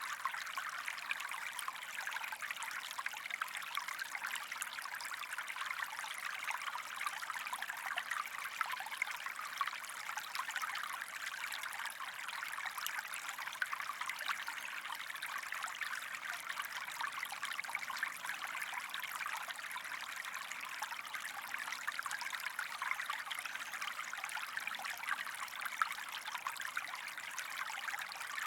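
Small stream running steadily over stones, a continuous babbling trickle with no pauses.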